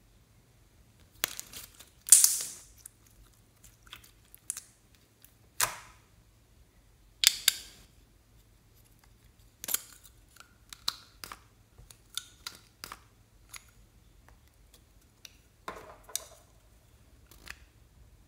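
Irregular sharp clicks, taps and rustles of hands handling plastic lip balm sticks and their caps over a glass dish of slime, the loudest about two and seven seconds in.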